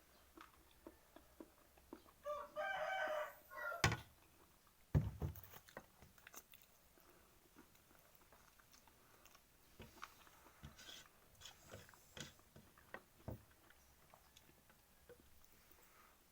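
A rooster crows once about two seconds in, over close-up eating sounds: soft clicks of chewing and utensils, with two sharp knocks near four and five seconds.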